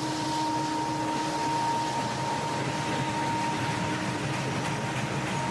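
Freight train of steel coil cars and gondolas rolling steadily past: an even rumble and hiss, with a thin steady whine on top.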